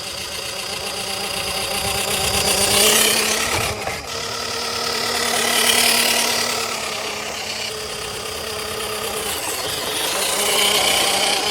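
WPL C34 radio-controlled car driving over rough ground: the whine of its small electric motor and gears, with rattling. It swells louder three times as it comes close and fades between, with a brief drop about four seconds in.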